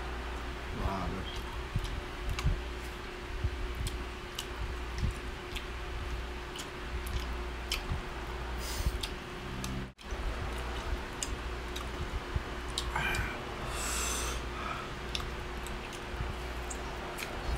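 A person eating fruit close to the microphone: chewing, with wet mouth clicks and squishes as pomelo segments are pulled apart and eaten, over the steady hum of an electric fan. A short breathy noise comes about thirteen seconds in.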